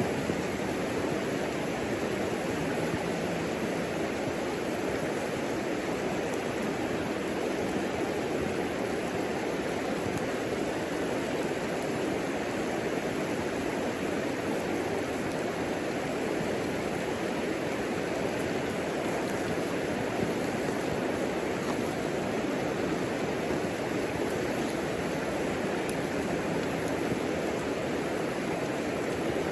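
Fire burning in a homemade wood stove: a steady rushing noise with faint, scattered crackles.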